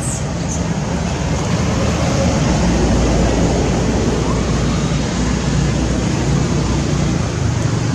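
Steady low background noise outdoors, with a few faint short rising chirps.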